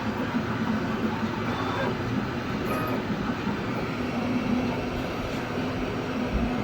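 A 3D printer running: a steady mechanical whir with a low hum underneath.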